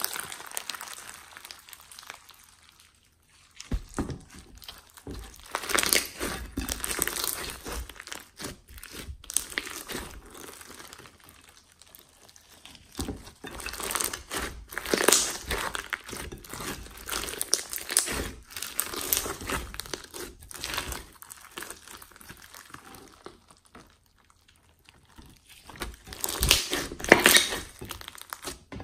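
Clear glossy slime packed with foam beads being squeezed and kneaded by hand, giving irregular crunching, crackling pops in bursts with a few brief pauses.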